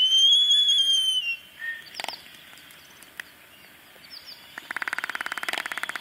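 Laysan albatrosses displaying: one long whistling call that rises and falls, then, after a single sharp click, a fast run of bill-clattering that lasts about two seconds near the end.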